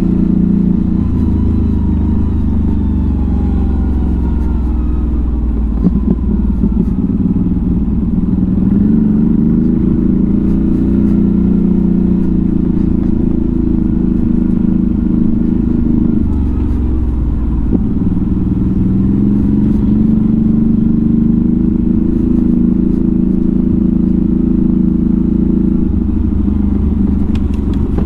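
CFMoto CForce 1000 ATV's V-twin engine running at low revs on a rough downhill trail, picking up revs twice about a third and two thirds of the way in. A short knock about six seconds in.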